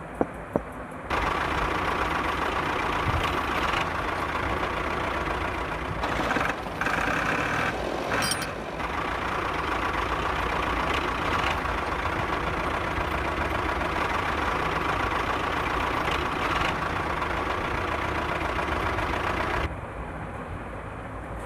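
A steady engine-like running noise, as from a vehicle, which starts abruptly about a second in, wavers for a few seconds near the middle and cuts off shortly before the end.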